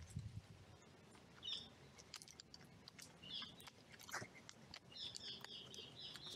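Faint clicking and cracking of crows pecking at scattered nuts and seeds, with small songbirds chirping in the background and a quick run of chirps near the end.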